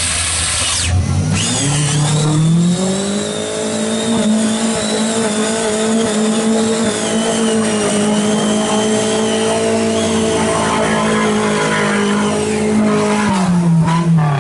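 Off-road vehicle's engine revving up about a second in and held at high, steady revs for about ten seconds as it pushes through deep mud and water, then dropping near the end.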